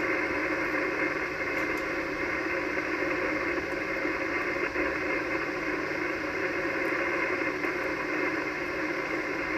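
Steady static hiss from an Icom HF transceiver's speaker on 80-metre single-sideband receive, heard through the narrow voice filter with no station talking. It comes up abruptly as the receiver opens and holds level throughout.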